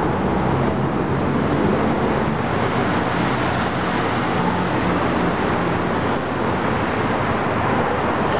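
A large vehicle engine running steadily, a loud, constant rumble with a low hum under it.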